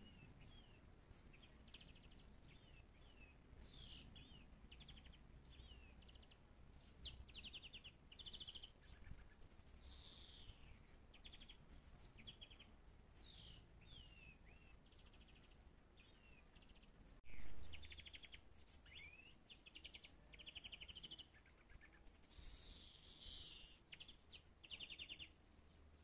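Songbird singing in a bare tree: a faint, varied song of quick trills, short chirps and down-slurred whistled notes, coming in bursts throughout. A single sharp click about seventeen seconds in is the loudest moment.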